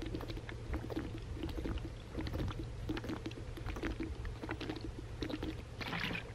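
A man gulping water from a plastic bottle, swallow after swallow at about two to three gulps a second, with the water glugging in the bottle. A short breath out near the end as the bottle comes down.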